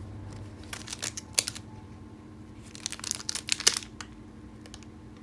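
Trading-card pack wrappers crinkling as they are handled, in two short bursts of sharp crackles, one about a second in and another around three seconds in.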